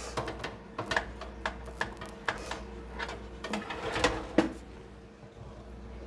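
Irregular clicks and light knocks from handling and setting an air fryer oven, over a steady low hum. The clicks stop about four and a half seconds in.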